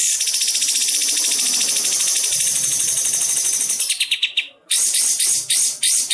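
Kapas tembak songbird giving its besetan: a very fast, high-pitched rattling trill held for about four seconds, then broken into several short bursts.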